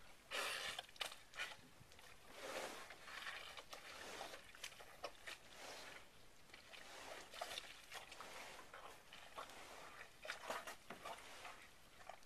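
Fiberglass pontoon being dragged and shoved through soft mud, in irregular short scrapes and shuffles.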